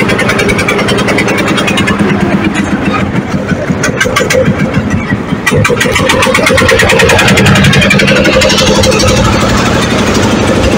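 A river boat's engine running steadily while the boat is under way, with a fast, even beat.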